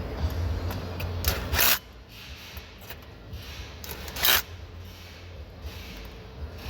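Two short scraping, rubbing sounds of parts being handled at the steering wheel, about a second and a half in and again after four seconds, over a low rumble that stops about two seconds in.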